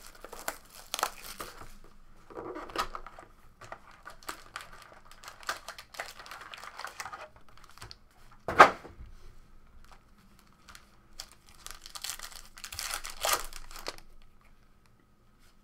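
Cellophane shrink wrap and trading-card pack wrappers crinkling and tearing as packs are opened by hand, in irregular rustling bursts, with one sharp, loud crackle a little past halfway.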